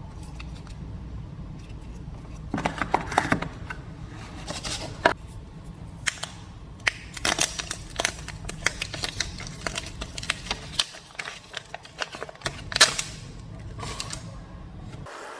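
Hands unboxing a smartphone: packaging rustling with many sharp clicks and taps from cardboard and plastic parts, one loud click about 13 seconds in, over a steady low hum.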